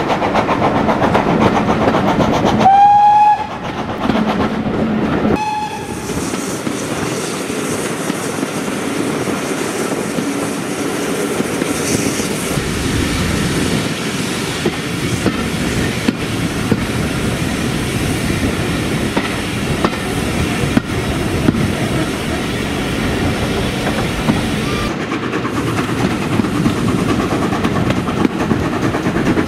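Steady rumble and clatter of coach wheels on the rails, heard from a carriage window of a train hauled by a GWR 5700 Class pannier tank steam locomotive. About three seconds in, the locomotive's whistle sounds one held blast at a single pitch, followed by a short toot about two seconds later.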